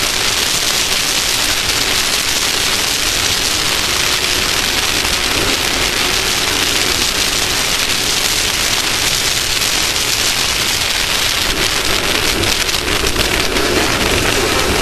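Steady loud rushing noise with a fine crackle, like wind and dirt roaring over a camera on a moving off-road race vehicle. An engine note comes up through it near the end.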